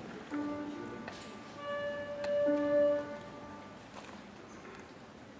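Instrumental introduction: a melody instrument plays a few long held notes over soft accompaniment, with a single sharp click about two seconds in.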